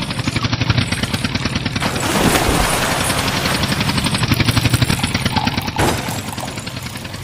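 Tractor engine chugging in a fast, even beat as the toy tractor drags two stacked toy dump trucks up out of the water on chains.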